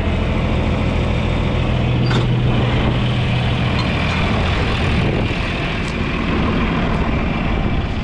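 John Deere loader tractor's engine running at a steady pace, heard from inside the cab, with a couple of faint clicks along the way.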